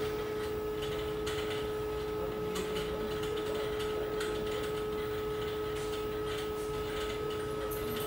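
Steady hum of running equipment in a water-heater mechanical room: an even background noise with a clear, unchanging tone held through it.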